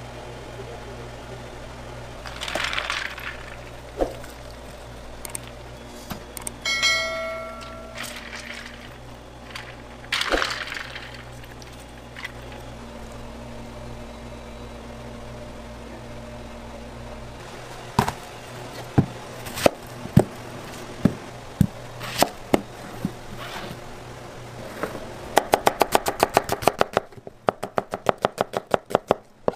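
Kitchen prep sounds: a few splashy swishes of hands moving through water and a short metallic ring about seven seconds in, over a steady low hum that stops about two-thirds through. Scattered knife taps follow, then near the end a knife slices an onion in quick even strokes on a plastic cutting board, several a second.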